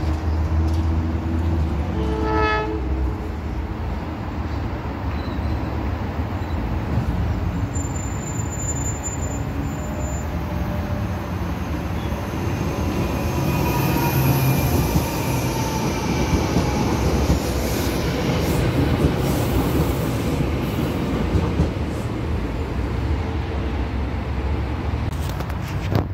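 NJ Transit commuter train passing, a steady rumble of its coaches' wheels on the rails, with a short horn note about two seconds in.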